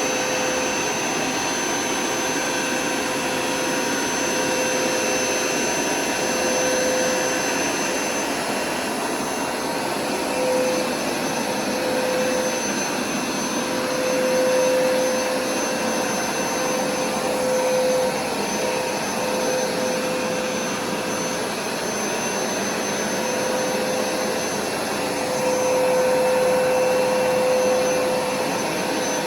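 Hoover carpet-cleaning machine running steadily over carpet: a continuous rushing suction noise with a steady motor whine, swelling slightly louder and softer now and then.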